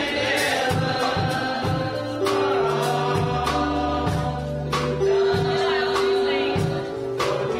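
Gospel music: a choir singing over a band with held bass notes and a steady drum beat.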